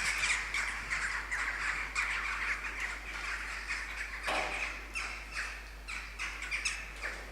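A yard full of corvids calling in alarm: many short, harsh squawks overlapping and repeating without a break, set off by the sight of a freshly shot bird.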